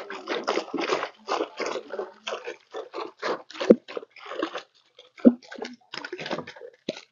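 Water splashing and streaming off a hoop-net shrimp trap (lú) as it is hauled hand over hand out of the pond, in short irregular splashes with brief gaps between them. Two dull knocks stand out, about a third and two thirds of the way through.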